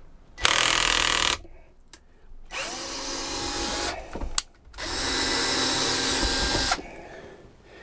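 Cordless drill-driver running three times, about a second, a second and a half, then two seconds, driving 1¼-inch screws up into a rooftop air conditioner's ceiling mounting plate. The screws are a little thicker than the ones that came out, so they are being run through to start their threads.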